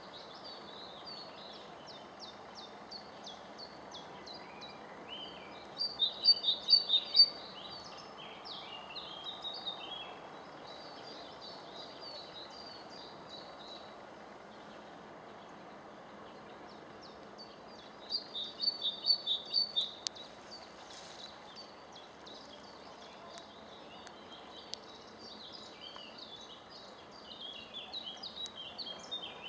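Wild songbirds singing: continual high twittering, with two louder bursts of quickly repeated notes about six and eighteen seconds in.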